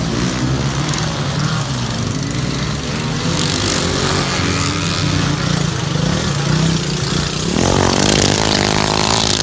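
Racing ride-on lawn mower engines running at speed, several at once; near the end one engine becomes much louder.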